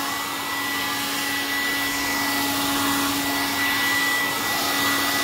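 Remington 1600 hair dryer running steadily, an even rush of air over a constant hum, heating the tablet's screen to soften the adhesive beneath it.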